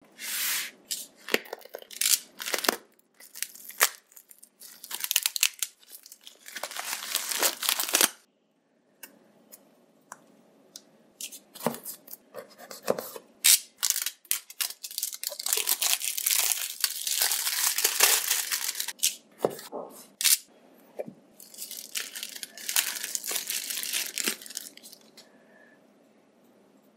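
Clear plastic shrink-wrap being torn and crinkled off a phone box, in repeated rustling bursts with sharp crackles, along with the taps and scrapes of the box being handled. It dies down over the last couple of seconds.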